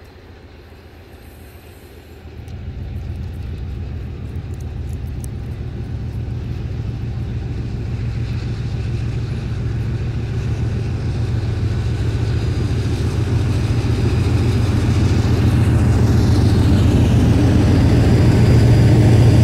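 Two GE C36-7i diesel-electric locomotives with V16 diesel engines pulling a freight train away under power. Their low engine drone steps up sharply about two seconds in and grows steadily louder as the locomotives approach and pass close by.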